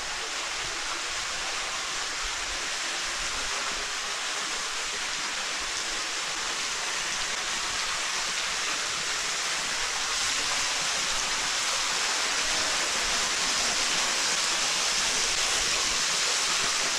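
Waterfall splashing into a canyon pool: a steady rush of falling water that grows slowly louder.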